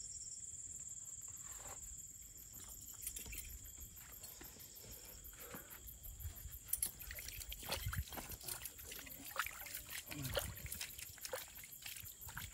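Crickets chirping steadily. From about three seconds in, hands splash and scoop water in a shallow spring seeping out of the rock, making irregular small splashes and trickles.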